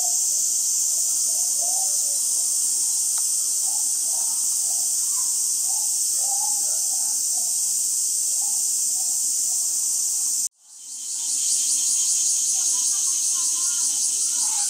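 Steady, high-pitched chorus of insects, with faint voices underneath. About ten seconds in the sound cuts out abruptly and fades back in, and the insect sound then pulses rapidly.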